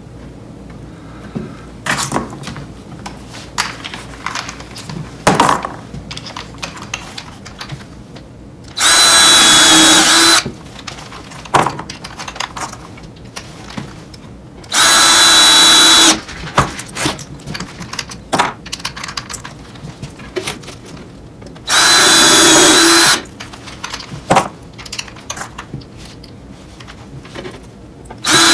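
Cordless drill running in four short bursts of a second or two each, boring into 1-inch rough lumber boards. Short knocks and clicks of the boards being handled come between the bursts.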